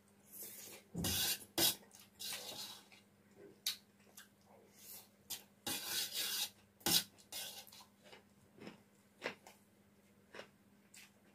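Metal spoon scraping and clinking against a stainless steel plate as fried rice is gathered up, with sharp clicks spread through and short rasping scrapes, alongside close chewing.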